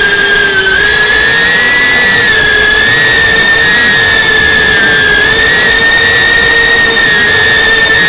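Quadcopter drone's motors and propellers whining steadily, a loud high-pitched whine whose pitch wavers slightly as the drone holds and shifts its speed.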